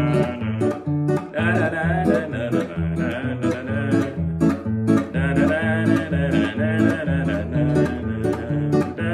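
Acoustic guitar playing the first, second and third chords in A major (A, E7, D) in corrido style: picked bass runs between strummed chords. A man sings along over it in held, wavering notes.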